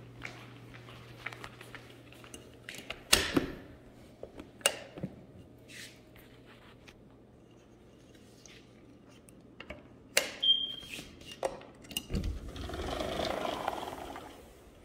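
Clicks and knocks of a sliding glass patio door being unlatched and slid open, with a brief high squeak about ten seconds in. A steady low hum stops about twelve seconds in, followed by a low rushing noise near the end.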